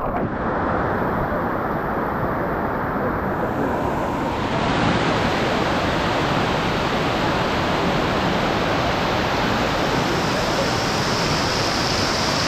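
Rushing water of a waterfall river cascading over rocks, a steady rush of noise that gets brighter about four and a half seconds in.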